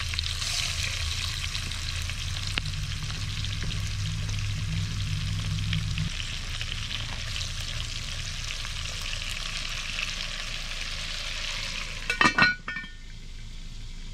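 Sliced potatoes frying in hot bacon grease in a Lodge 10-inch cast-iron camp Dutch oven, sizzling steadily while being stirred with a wooden spoon. Near the end a few sharp clanks as the cast-iron lid is set on, after which the sizzle is muffled.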